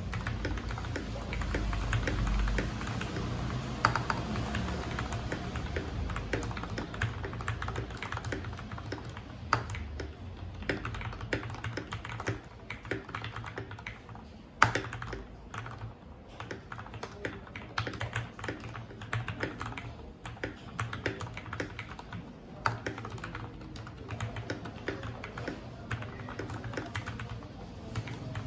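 Fast, continuous typing on a mechanical keyboard fitted with lubed Cherry MX Hyperglide Black linear switches: a steady patter of keystrokes with a few louder strokes standing out.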